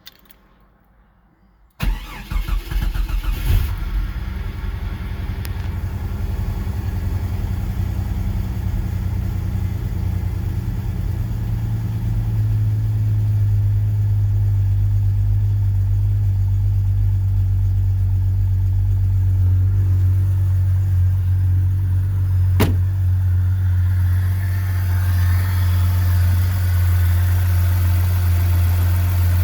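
Jeep Comanche's 4.7-litre stroker inline-six starting about two seconds in, running unevenly for a couple of seconds, then settling into a steady rough idle. A single sharp click sounds about three-quarters of the way through.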